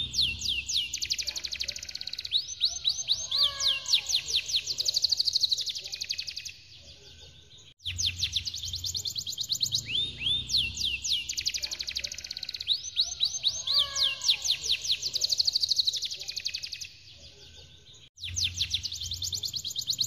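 Domestic canary singing a long, fast rolling trill of rapid downward-sweeping high notes, with a few lower whistled notes mixed in. The song breaks off twice into a short pause, and the same phrase plays again after each.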